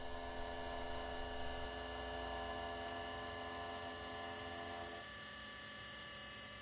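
CNC mill spindle running an end mill through the putty-faced plug, a steady hum with several whining tones. About five seconds in, some of the lower tones drop away.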